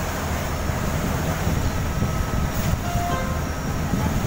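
Chao Phraya Express boat's diesel engine running steadily while the boat is underway, a loud, even, low rumble mixed with the rush of water and wind past the open side of the boat.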